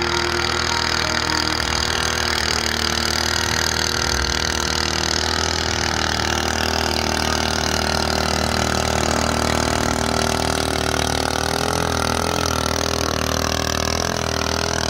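Motorboat engine running steadily as the boat speeds across flooded fields, a constant drone whose pitch wavers slightly near the end.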